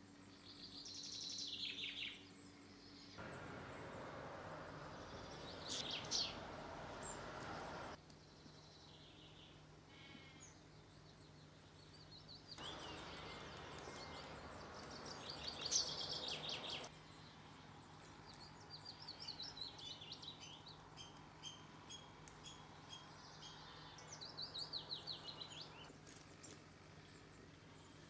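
Small wild songbirds singing and calling outdoors in bursts of quick repeated high notes, one song ending in a run of notes falling in pitch near the end. Two stretches of hissing noise, each a few seconds long, rise over them.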